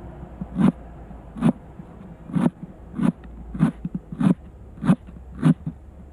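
Knife chopping vegetables on a cutting board: a steady run of sharp knocks, about eight of them, roughly one every two-thirds of a second.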